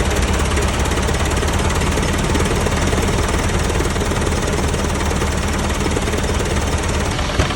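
1920 Minneapolis 22-44 gas tractor engine running steadily under load, driving a sawmill, with a rapid, even firing beat and the mill's clatter mixed in.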